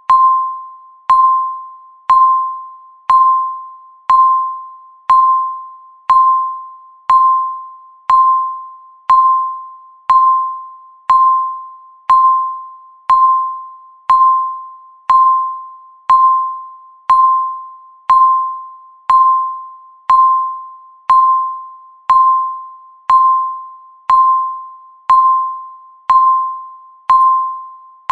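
Countdown timer beep sounding once every second: a single clear, bell-like tone that starts sharply and fades away before the next one, marking each second of the countdown.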